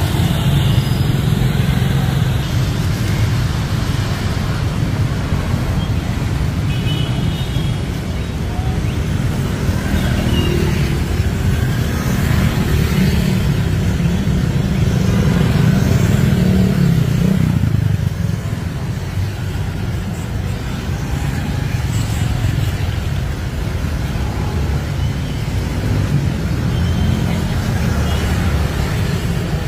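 Steady street traffic noise: a low rumble of passing motorbikes and cars, a little louder near the middle and easing slightly about two-thirds of the way through.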